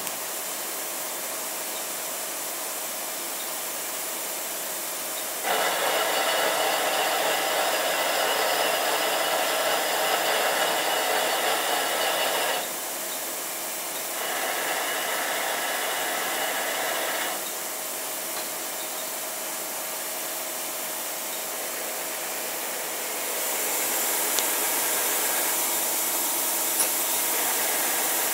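Takisawa TMM-250 twin-spindle CNC lathe running through a function test. A steady machine hiss carries throughout. Two louder stretches of even whirring noise rise over it, the first about five seconds in and lasting some seven seconds, the second shorter and starting a couple of seconds after the first ends. Near the end the hiss turns brighter and higher.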